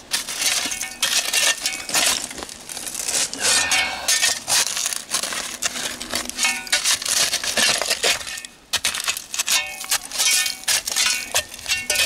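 Shovel blade jabbing and scraping into dirt packed with broken glass and bottle shards: a rapid run of gritty scrapes and glassy clinks, with a brief pause about two-thirds of the way through.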